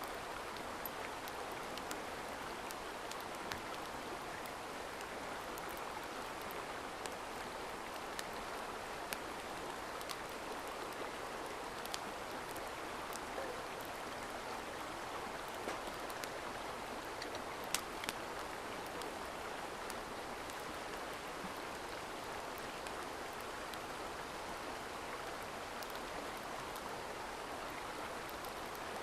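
Mountain stream running steadily, with scattered faint sharp clicks over the flow of water.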